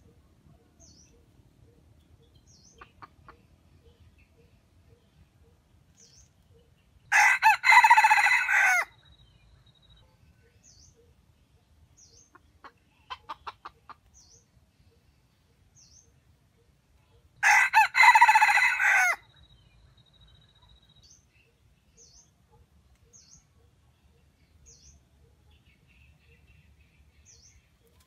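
Red junglefowl rooster crowing twice, each crow short, under two seconds, about ten seconds apart, with a brief run of quick clucks between them. Faint high chirps repeat in the background.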